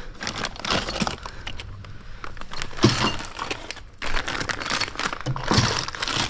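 Rummaging through a bucket of small metal brake hardware: parts clinking and rattling against each other in a run of quick clatters.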